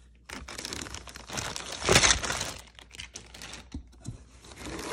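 Clear plastic packaging crinkling and rustling as it is handled, in irregular bursts, loudest about two seconds in.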